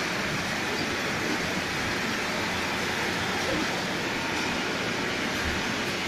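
Two-head sunray sanding machine working on the inside of a stainless steel pot: a steady hiss of abrasive on steel over the machine's motor, even in level throughout.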